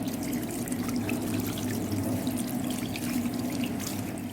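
Tap water running steadily while hands are washed under it.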